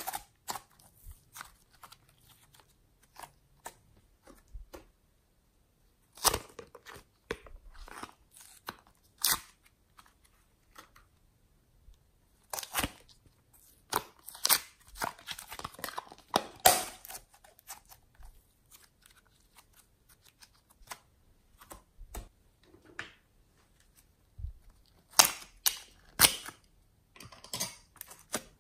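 Thick slime and clay squeezed, stretched and pulled apart by hand, giving irregular sticky crackles and small pops in scattered clusters with quiet gaps between them.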